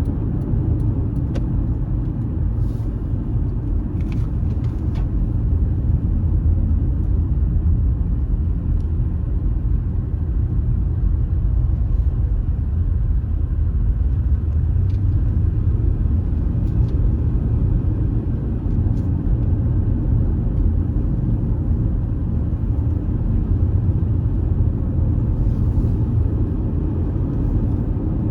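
Car driving on an unpaved, dusty road: a steady low rumble of tyres and engine, with a few faint ticks.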